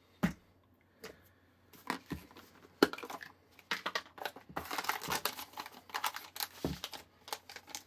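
Rustling and crinkling of a paper instruction sheet and handling of a plastic drink-mix canister, with scattered clicks and knocks. The rustling is densest about halfway through.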